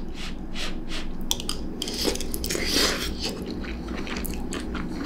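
Two people chewing mouthfuls of roasted broccoli and bell pepper stir-fry with chickpeas, in many small crunchy clicks.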